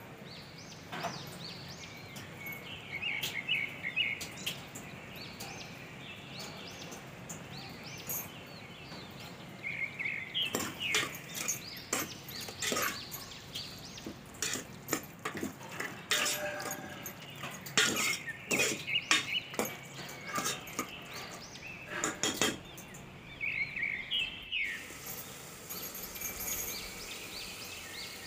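A steel spoon stirring vegetables in an aluminium pot, with a quick run of scrapes and clinks of metal on metal through the middle. Birds chirp in the background near the start and again near the end.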